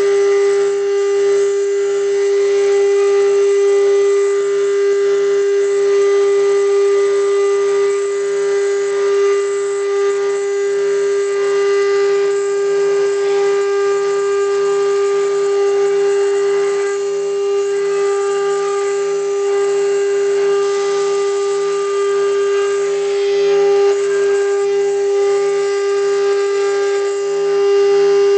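CNC router spindle running with a steady high whine as its small engraving bit cuts grooves into an acrylic sheet, throwing off plastic chips.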